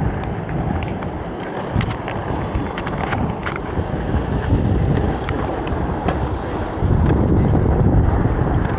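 Inline skate wheels rolling on pavement, with wind on the microphone: a steady low rumble with a few light clicks in the first three seconds, louder again near the end.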